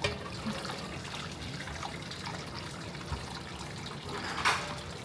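Liquid trickling and dripping, with a short louder rush of noise near the end.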